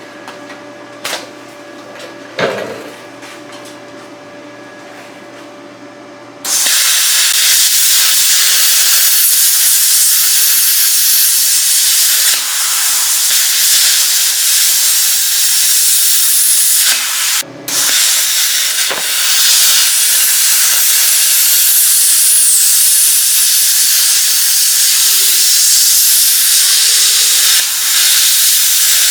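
Plasma cutter cutting a hole through thick steel: a loud, steady hiss of the arc and air jet starts about six seconds in, stops for a moment once and starts again. Before the cut, a low steady hum with a few clicks.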